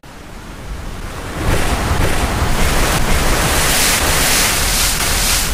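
Recorded ocean surf: the sound drops away at the start, then a wave builds back up over about a second and a half into a loud, steady wash.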